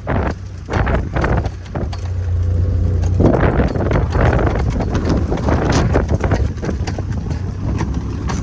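Honda Talon 1000X-4 side-by-side's parallel-twin engine running under way through snow, with irregular thumps and wind rushing over the microphone. The rushing grows louder about three seconds in.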